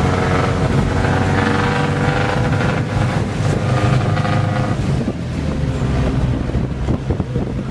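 Jeepney running along the road, heard from inside the passenger cabin: a steady engine drone with wind rushing through the open windows, and rattling from about five seconds in.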